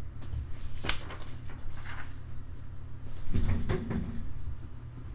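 Handling noises on a tabletop: a few sharp clicks, then a short cluster of low knocks about three seconds in, over a steady low hum.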